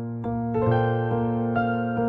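Background music: a soft electric piano playing a steady run of sustained notes, about two a second.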